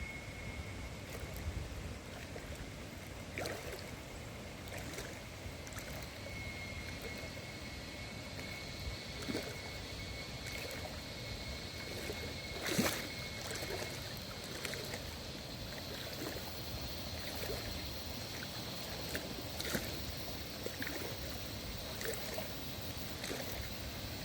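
Icy river water flowing over stones, a steady rushing with scattered small splashes and one sharp click about halfway through. A faint high-pitched steady tone runs underneath.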